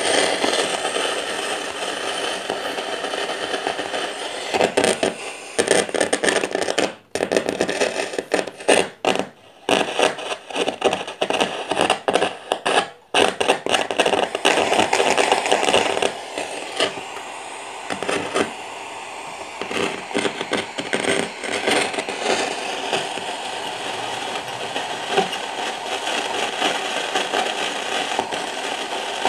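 Old radio-cassette recorder's speaker giving out FM static hiss, crackling and cutting out sharply several times between about five and thirteen seconds in as its knobs and tuning are worked, then hissing steadily. The repairer suspects a fault inside that stops it picking up FM properly.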